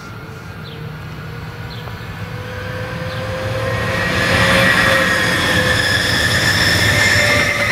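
SBB RABe 523 Stadler FLIRT electric multiple unit approaching and passing at speed. Wheel and rail noise grows louder with the whine of its electric traction drive, loudest from about halfway through as it goes by.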